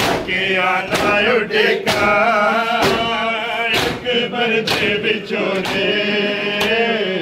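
Men chanting a Punjabi noha (mourning lament) together, with sharp hand slaps on bare chests (matam) keeping an even beat of a little under one a second.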